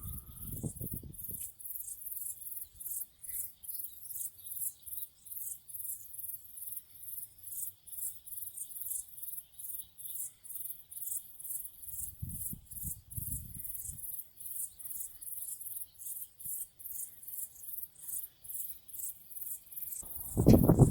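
Night insects chirping in a steady, even, high-pitched pulse, about two or three chirps a second, over a faint continuous buzz. Low muffled sounds come about a second in and again around the middle, and a much louder low sound right at the end.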